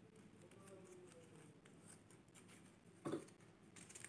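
Faint rustling and creasing of paper strips being folded by hand, with one short knock about three seconds in.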